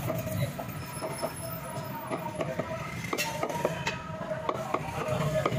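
Butcher's cleaver chopping meat on a round wooden chopping block: irregular sharp knocks over the steady background noise of a busy butcher's shop.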